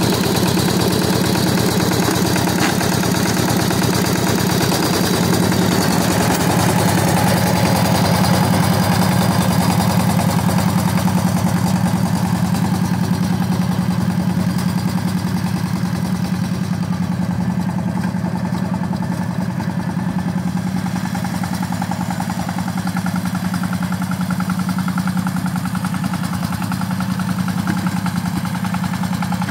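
Two-wheel walking tractor's single-cylinder diesel engine running steadily under load as it ploughs and levels a field, a little quieter in the second half.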